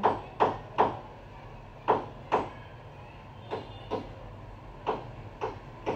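A spoon knocking and scraping against a cooking pot as the liquid in it is stirred: short, irregular clatters, about nine in all.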